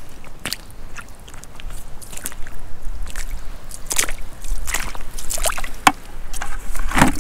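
Rubber wellington boots squelching through wet sand and shallow water on the shore, a few irregular steps, with a low rumble coming in about halfway through.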